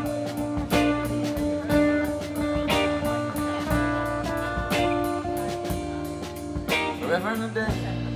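Live rock band playing an instrumental passage: acoustic and electric guitars holding sustained notes over drums, with a sharp drum hit about once a second.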